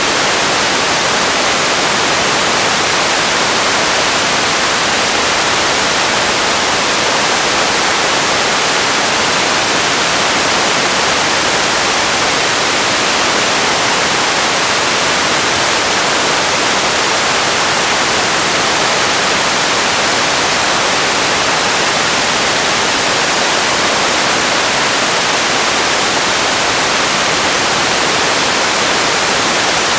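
Steady, even hiss of noise, strongest in the upper range, without any change, event or tone in it: an ambience-noise sound effect.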